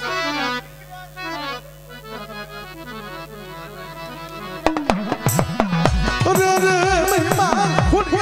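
Traditional devotional folk music. A melody instrument plays quick falling runs over a steady drone, then drums come in loudly a little past halfway, under a held melody line.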